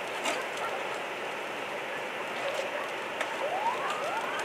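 Steady rushing noise of a large structure fire burning, with scattered faint crackles. About three seconds in, an emergency vehicle's siren starts a rising wail.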